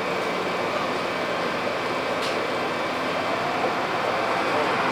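Steady noise aboard a boat moving slowly along a pier: the boat's engine and the water around the hull, with no single sound standing out.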